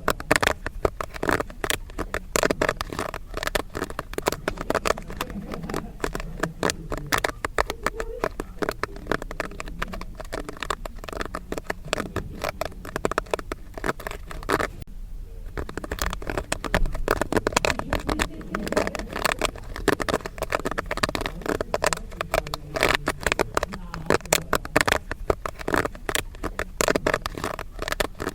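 Popcorn kernels popping in a dense, fast crackle of pops, with a brief lull about halfway through.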